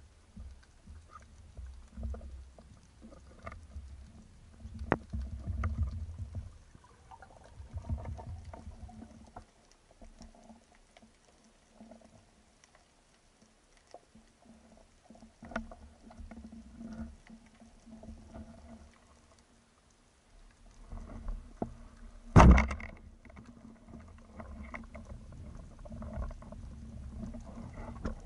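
Muffled underwater sound through an action camera's waterproof housing: low rumbling water movement and scattered soft knocks and clicks as a spearfisher handles a banded speargun and a speared fish. One loud sharp knock stands out about two-thirds of the way through.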